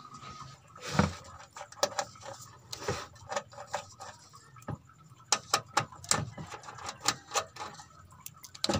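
Irregular light clicks and taps of hands and a tool working over an LED TV's backlight panel, with a duller knock about a second in.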